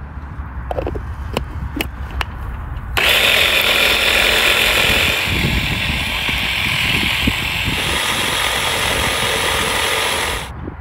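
Electric hand blender with a chopper bowl attachment blending a green sauce: a few clicks, then about three seconds in the motor starts and runs steadily with a loud whir for about seven seconds before cutting off suddenly shortly before the end.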